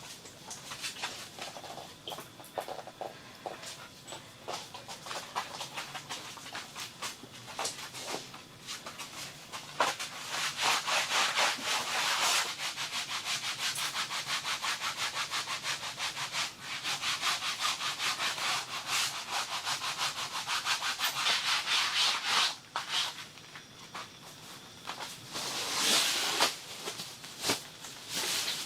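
Fast, evenly repeated scraping strokes, like a hand saw or sanding on wood, in a long run through the middle with quieter, scattered scratching before and after it.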